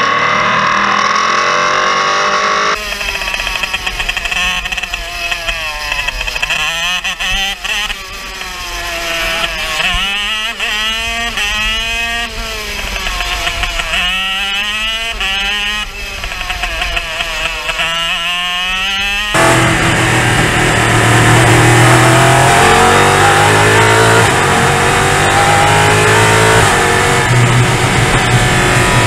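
Onboard race engines in three cuts: a prototype race car's engine for the first couple of seconds, then a racing kart's engine rising and falling in pitch over and over through the corners, then from about twenty seconds in a louder prototype race car engine held at high revs.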